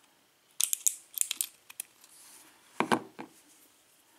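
Lock cylinder plug being slid out of its housing: a cluster of small metal clicks and taps, then a duller knock about three seconds in.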